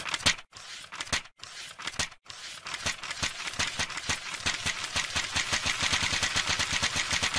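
A rapid rattle of sharp clicks, broken by three short gaps in the first couple of seconds, then running on evenly at many clicks a second.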